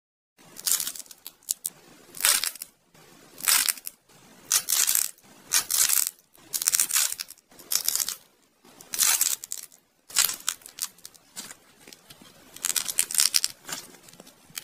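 Crusty dried clay imitation sweets being squeezed and broken apart by fingers: a series of crisp crackling crunches, roughly one a second, with short pauses between them.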